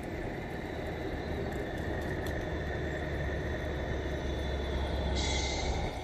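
RC tractor-trailer rolling past on asphalt: a steady low rumble with a faint mechanical whine, and a short hiss about five seconds in as the trailer clears.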